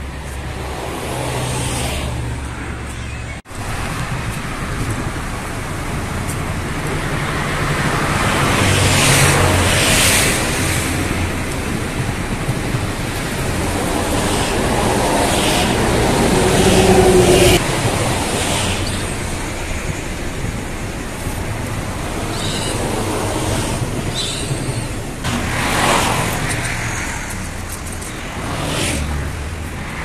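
Road traffic noise: passing vehicles rising and fading one after another, the loudest about seventeen seconds in.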